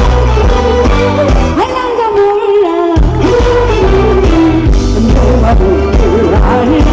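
A woman singing live into a microphone over a backing track with a steady bass beat. The bass drops out briefly between about two and three seconds in.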